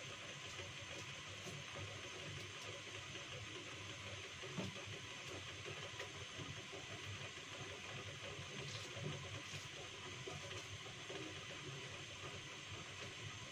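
A lidded saucepan of beef-and-carrot soup bubbling on a gas burner, a steady hiss with a few faint ticks.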